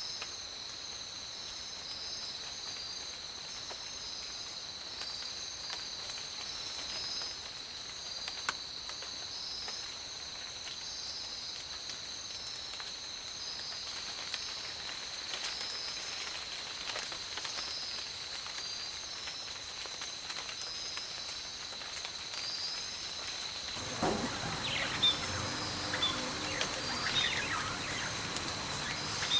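Insects droning steadily at a high pitch, with a pulsing trill just above the drone. About 24 seconds in the sound changes suddenly and grows louder, with birds chirping over the insect drone.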